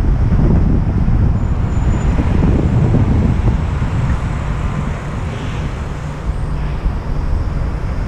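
Wind buffeting a helmet-mounted action camera's microphone while cycling, a steady low rumble over downtown street traffic; it eases off for a couple of seconds past the middle.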